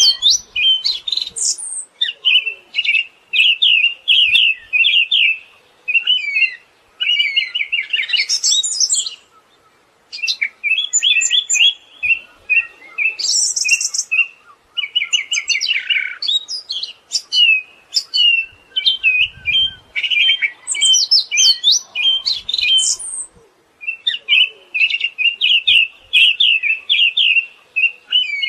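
Siberian thrush singing a loud, varied song of rapid trilled phrases, each a second or two long with short pauses between them.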